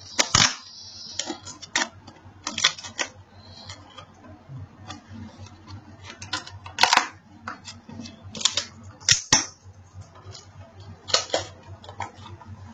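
Handling noises of a smartphone's retail box being opened: scattered sharp clicks and short rustles of cardboard and plastic, over a low steady hum.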